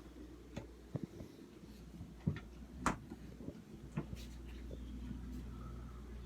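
Handling noise at a fridge: about five irregular clicks and knocks, the loudest about three seconds in, over a steady low hum.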